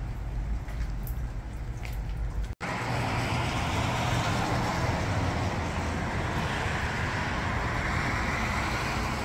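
Steady road traffic from a nearby street, with tyres hissing on wet pavement. The sound cuts out for an instant about two and a half seconds in.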